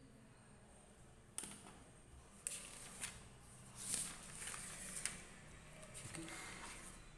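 Handling noise: rustling with a few sharp clicks, starting about a second and a half in after a short near-quiet stretch.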